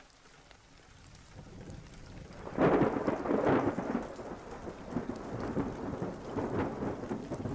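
Thunderstorm: rain fades in, then about two and a half seconds in a loud peal of thunder rolls and dies away under continuing rain.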